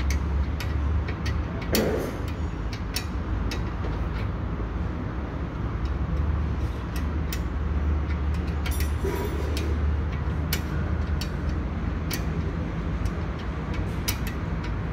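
Scattered light metallic clicks and clinks of hand tools on fittings and brackets in a car's front end, over a steady low rumble of engine-like background noise.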